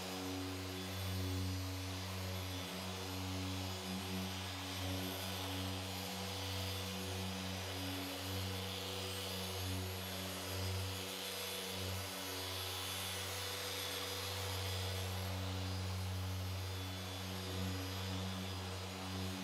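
Electric Festool car polisher running steadily with an even motor hum and whir as its foam pad is worked over the paint.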